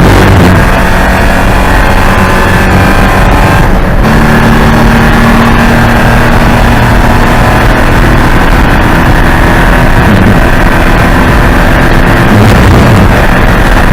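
Porsche 944 Spec race car's four-cylinder engine running hard under load, loud and steady, with a short break in the engine note about four seconds in, as at a gear change.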